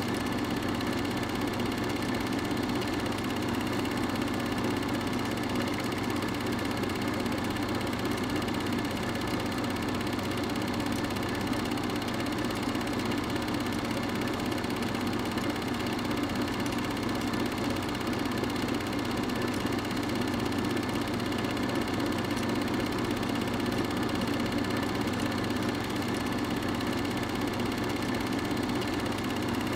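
Steady mechanical whir and hum of an 8mm film projector running during the transfer, unchanging throughout, with no sound from the filmed scene.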